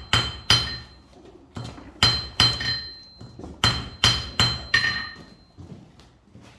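Blacksmith's hammer striking a hand-forged iron nail on the anvil to straighten it: about nine ringing metal blows in quick groups of two to four with short pauses between.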